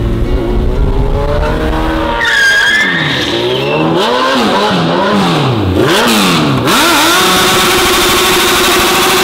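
Suzuki Hayabusa's inline-four motorcycle engine revved hard several times in quick succession, then held at high revs from about two thirds of the way in as the rear tyre spins on concrete in a burnout, with steady tyre squeal.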